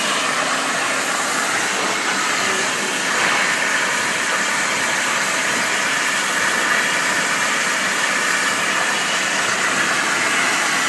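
CNC plasma cutting torch cutting metal: a loud, steady hiss that turns a little brighter about three seconds in.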